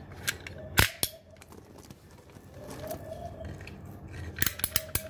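A ratcheting PVC pipe cutter snaps once sharply, then near the end clicks in a quick run as its handles are squeezed to drive the blade through a PVC pipe.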